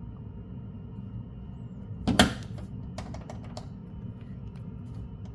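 Plastic air intake cover and its side clips under a Tesla's hood clicking as they are pushed by hand: one loud knock about two seconds in, then a quick run of lighter clicks. The clicking comes from loose side clips, a source of the front rattle heard in the cabin.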